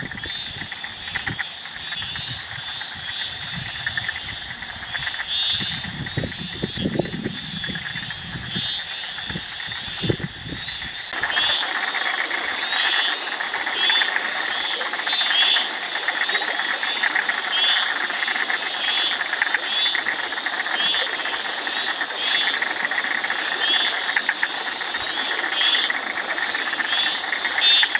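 A chorus of frogs calling from floodwater: short high calls repeated about once a second over a steadier trill. For the first eleven seconds there are low sloshing knocks from the water; these stop suddenly, and the calls then come through clearer with a faint high hiss.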